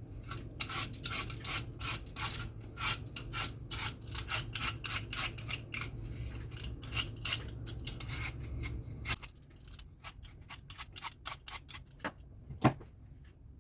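An apple being peeled: quick repeated scraping strokes of the blade through the skin, about three a second, thinning out later, with one sharper click near the end.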